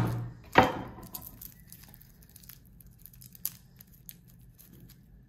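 Flat of a chef's knife blade smacked down with the palm onto garlic cloves on a wooden chopping board, cracking them to loosen the skins: sharp knocks at the start and about half a second in. Then faint, scattered crinkling and tearing as the papery garlic skins are peeled off by hand.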